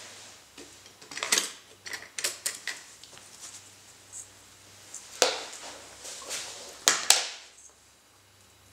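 Scissors and a roll of double-sided tape being handled: scattered light clicks and rustles, with two sharp clicks close together about seven seconds in.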